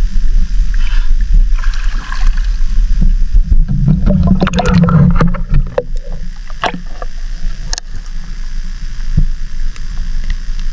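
Shallow seawater sloshing and splashing close to the microphone as someone wades, with a low rumble underneath and a burst of splashes and knocks about four to five seconds in.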